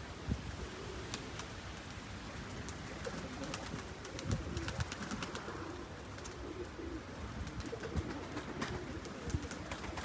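Strong wind buffeting the microphone: a steady low rumble with a few heavier thumps and scattered small crackles.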